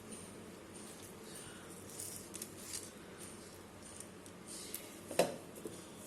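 Faint kitchen handling noises: a few soft scrapes and clicks, then one sharp knock about five seconds in, over a faint regular ticking about every half second or so.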